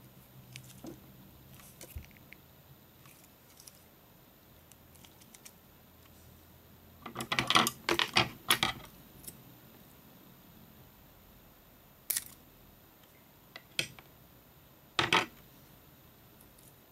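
Small hard objects clicking and clattering on a wooden table as a hand reaches for a tool. The clatter comes in a quick cluster about halfway through, followed by three separate sharp clicks a second or two apart.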